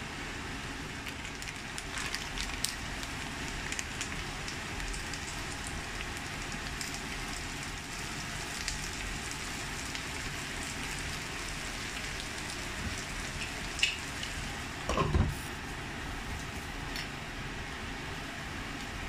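Sliced potatoes and minced beef frying in oil in a stainless steel pan: a steady sizzle with scattered crackles and pops. A short, louder clatter comes about fifteen seconds in.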